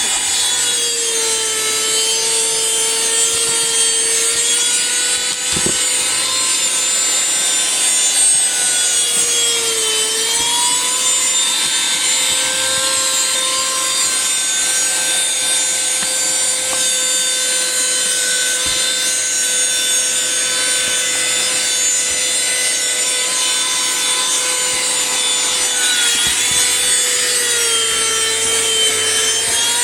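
Small vacuum cleaner running loudly, its motor giving a steady high whine. The pitch dips briefly about ten seconds in and again near the end.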